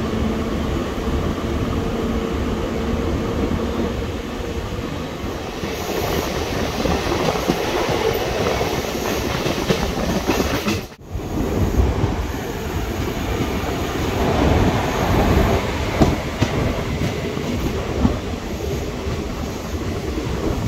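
DEMU passenger train running, heard from its open doorway: a steady rumble of wheels on rail with wind noise and a hum in the first few seconds. A few sharp clacks come near the end, and the sound drops out for a moment about halfway through.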